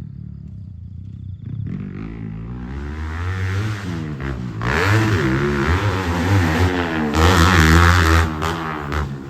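Grasstrack racing motorcycle engine running low, then revved in repeated blips from about two seconds in, its pitch swinging up and down, loudest around seven to eight seconds in.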